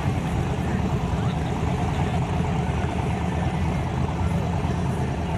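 The engine of a twin-turbo Chevrolet S10 drag truck idling steadily.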